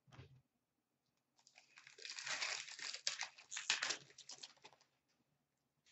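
Upper Deck Artifacts hockey card pack's foil wrapper being torn open and crumpled: a dense crackling with many small clicks that starts about a second and a half in and dies away near the end. A faint knock comes at the very start.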